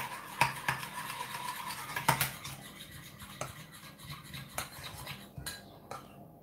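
Metal cutlery scraping and clicking against small bowls while a runny homemade slime mixture is stirred, with a sharper clink about two seconds in. The scraping thins out near the end.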